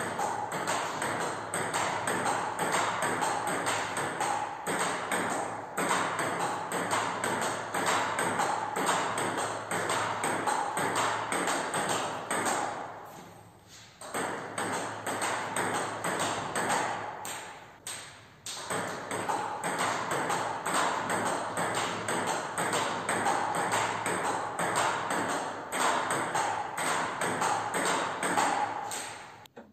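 Table tennis rally: the plastic ball clicking off the paddles and the table in quick, even alternation, stopping twice briefly part-way through when the rally breaks.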